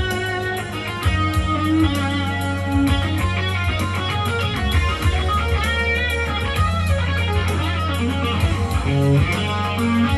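Electric guitar playing a lead melody of held, singing notes over a backing of steady bass notes and drums.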